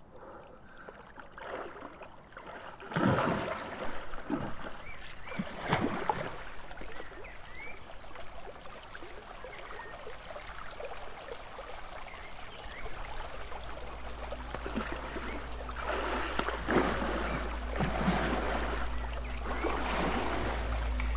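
Running water, swelling in irregular splashing surges, with a low steady hum coming in about two-thirds of the way through.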